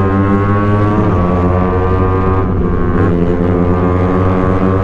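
Suzuki Raider F.i 150 motorcycle's single-cylinder four-stroke engine running hard at speed, its droning pitch climbing slowly, with a brief break in the drone about halfway through.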